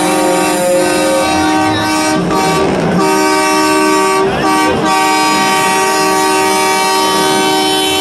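Air horns of several semi-trucks blowing together in a loud, steady, discordant chord, with brief breaks about two seconds and four and a half seconds in.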